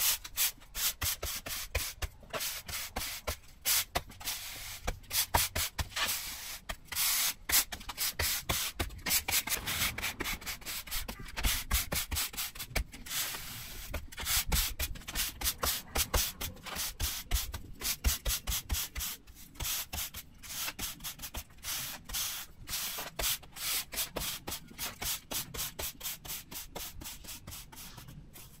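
Stiff broom sweeping sand across a driveway to refill the joints during re-sanding, in quick repeated strokes, a few a second.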